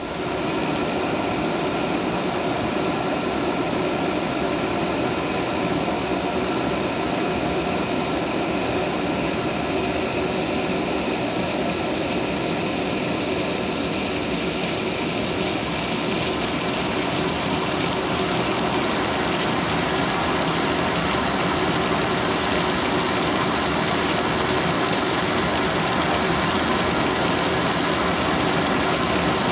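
Steady rumbling hiss with faint steady tones from the denatured-alcohol stove's flame and the water in the titanium kettle, heating up to a rolling boil.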